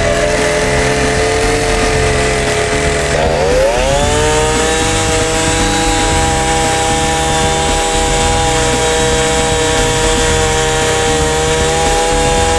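Small engine driving a mop skimmer's oil mop rope, running steadily at high speed; about three seconds in it speeds up with a short rising whine, then holds its new speed.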